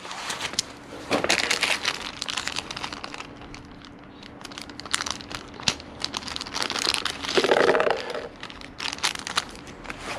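Plastic packaging crinkling and small parts being handled at a workbench: irregular rustles with sharp clicks.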